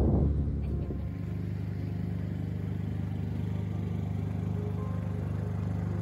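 Boat engine running steadily at idle, a low even hum. In the first second, the louder rumble of the boat under way with wind on the microphone.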